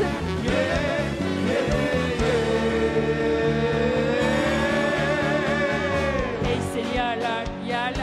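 Live band playing a Turkish pop song with a steady beat. Through the middle a long held melody line wavers and slowly rises and falls before the rhythm carries on.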